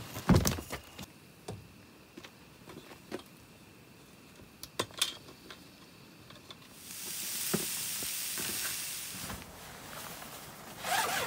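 Handling and climbing noises on a rooftop tent's metal ladder: a loud knock at the start, then scattered light clicks and taps. A steady hiss of about two seconds follows, and rustling comes near the end.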